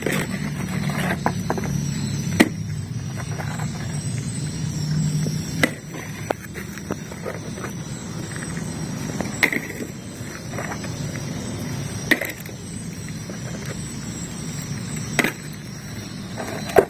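Plastic toy vehicles being handled and set down, with a sharp clack every few seconds, over a steady low hum.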